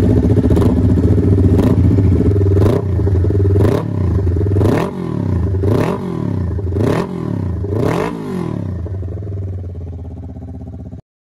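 Kawasaki Ninja 400's parallel-twin engine through an M4 Racing full exhaust, running steadily and then blipped by hand about once a second, the pitch rising and falling with each rev. The revs die away and the engine settles lower before the sound stops near the end.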